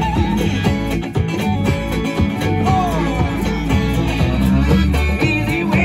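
Live instrumental music from a resonator guitar over electric bass, with a few bent, sliding guitar notes.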